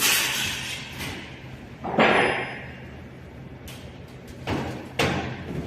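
Four heavy knocks or slams of hard objects being handled, one at the start, one about two seconds in and two close together near the end, each trailing off briefly.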